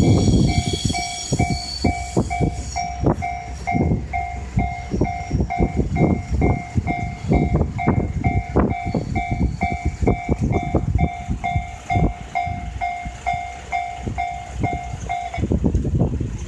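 Japanese level-crossing warning bell ringing in even electronic dings, about two and a half a second, and stopping about fifteen seconds in. Over it, a train's wheels clatter over the rail joints as it passes.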